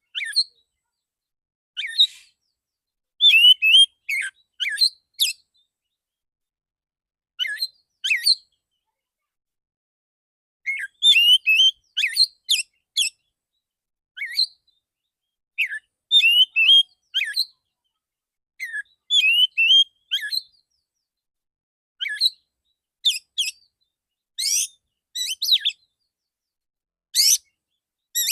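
Male oriental magpie-robin singing in short phrases of sharp, clear whistled notes and quick slurred chirps, each phrase separated by a pause of about a second or two.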